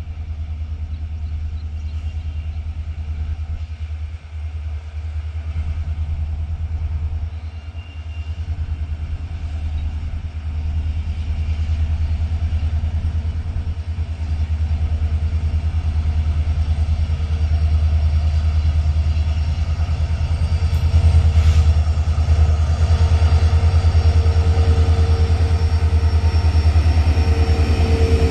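A WDP4D diesel-electric locomotive approaching at the head of a passenger train, its engine rumbling and growing steadily louder. A steady tone strengthens in the last few seconds.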